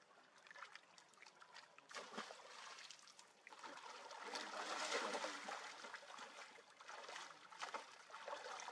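Water splashing and trickling, faint, with many small sharp splashes and a louder stretch about four to six seconds in.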